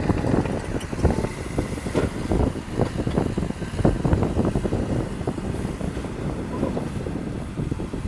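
Caterpillar D6R LGP bulldozer at work: its diesel engine runs under load, and frequent clanks and knocks come from the tracks and the stone being pushed.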